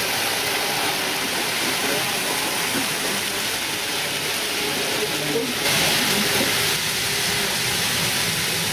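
Tomix N-gauge model train running along the layout track: a steady rolling hiss, growing a little louder about six seconds in.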